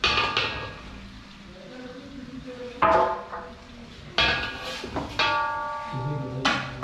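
A metal ladle clanging against a large stainless-steel cooking pot: five sharp strikes spread over several seconds, each ringing on, the one about five seconds in ringing with a clear, steady tone.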